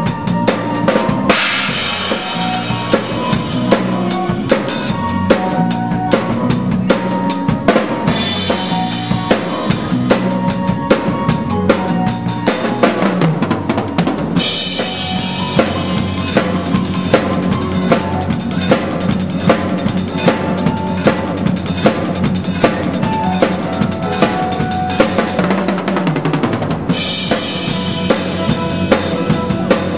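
Drum kit played in a fast, driving groove: kick drum, snare and cymbals, with stretches of ringing cymbal wash, under the pit orchestra's keyboards playing musical-theatre dance music.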